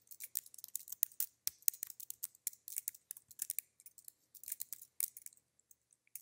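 Quiet, rapid, irregular clicking of computer keyboard keys being typed, several clicks a second, pausing briefly near the end.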